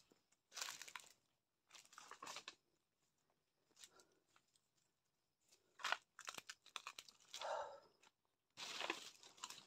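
Footsteps crunching and rustling through dry, fallen banana leaves, in irregular bursts with short quiet gaps between.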